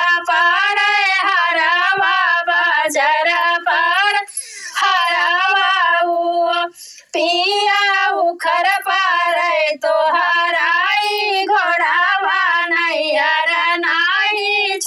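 A woman singing a sohar, a folk childbirth song, in a high voice without instruments, with short breaks for breath about four and seven seconds in.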